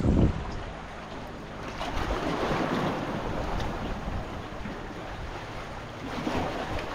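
Sea waves washing, with wind rumbling on the microphone. The wash swells about two seconds in and eases off after.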